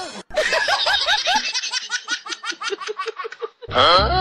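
High-pitched laughter, a quick run of repeated "ha" syllables at about five a second, lasting about three seconds. A short loud sound follows near the end.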